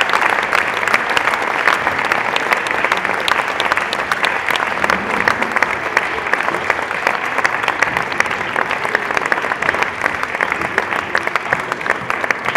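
Audience applauding steadily, a dense patter of many hands clapping that eases off slightly near the end.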